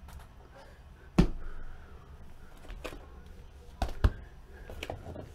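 Handling noise on a tabletop as card boxes and packs are moved: a sharp knock about a second in, then several lighter knocks and clicks.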